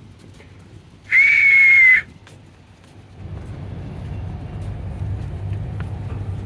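One loud, steady high whistle lasting about a second, followed about three seconds in by a low rumble that carries on.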